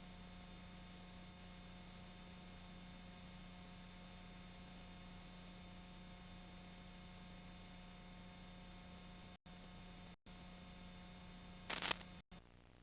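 Steady electrical mains hum with a thin high whine over it that stops about halfway through. Near the end the hum cuts out completely for an instant three times, and there is one short burst of noise.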